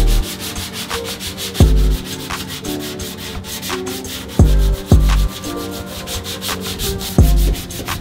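Hand block sanding of a 1969 Porsche 911's steel body panels with 180-grit paper: quick, even back-and-forth scratching strokes. Background music with a deep electronic kick drum and held notes plays over it, and the kick hits are the loudest sounds.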